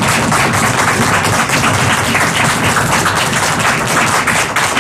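Studio audience applauding, a dense steady clapping that holds through and begins to thin out just after.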